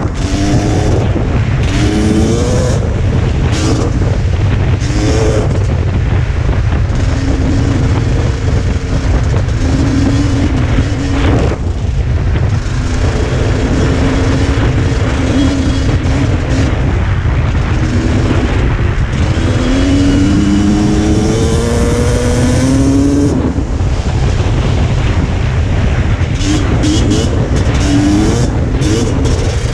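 Dirt bike engine under way, its pitch climbing again and again as it revs up through the gears, with steady cruising stretches in between and a brief drop about eleven seconds in. Heavy wind rumble on the microphone runs underneath.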